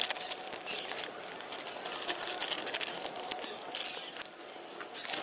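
Scattered crinkling and small clicks from hands and utensils working ingredients while a chicken tikka marinade of raw chicken pieces and spice powders is prepared.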